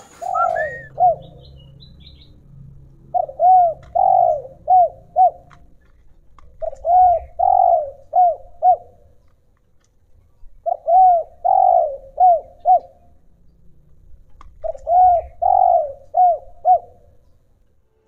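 A dove cooing in repeated phrases of several rising-and-falling coo notes, each phrase about two seconds long, four times in a row a few seconds apart, with a few faint high chirps near the start.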